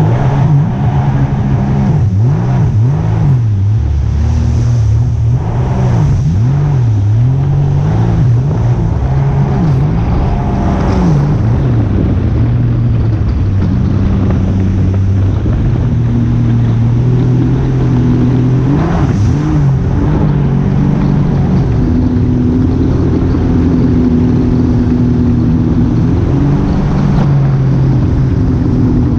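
An engine running steadily, its pitch rising and falling over the first ten seconds or so, then holding more even.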